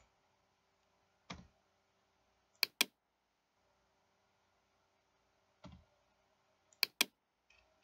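Computer mouse button clicked in two quick double-clicks, one about two and a half seconds in and another near the end, with a couple of softer knocks between.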